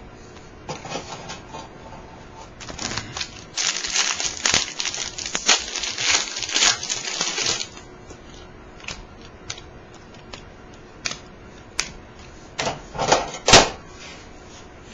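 Crinkling and rustling of a foil trading-card pack wrapper being handled and torn open, with cards clicking against each other. The densest crackling comes between about 3 and 8 seconds in, followed by scattered card clicks.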